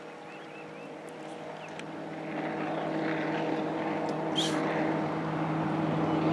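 Mercury 150 XR6 V6 two-stroke outboard on a bass boat running at high speed across open water. Its steady engine note grows louder as the boat approaches.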